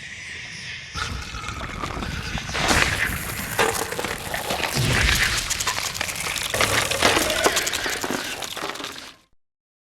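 Mothra larva sound effect: a dense, crackling hiss that fills out about a second in and cuts off abruptly about nine seconds in.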